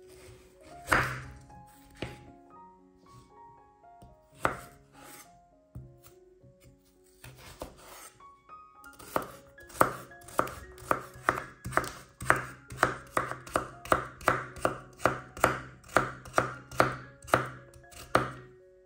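Kitchen knife cutting vegetables on a wooden cutting board: a few separate cuts, then from about halfway a steady run of about two chops a second. Soft background music plays underneath.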